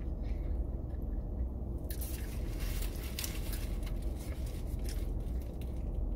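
Close-up chewing of a crunchy fried Popeyes spicy chicken sandwich. A run of crisp crunching starts about two seconds in and lasts a few seconds, over a steady low hum.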